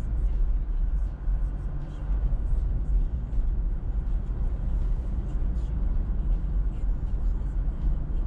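Car driving: a steady low rumble of road and engine noise.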